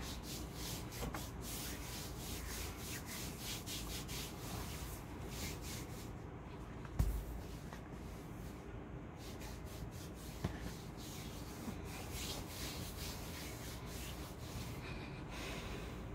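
A hand rubbing baby powder over bare skin of the leg in quick repeated strokes, dusting the skin before waxing. A single thump about seven seconds in.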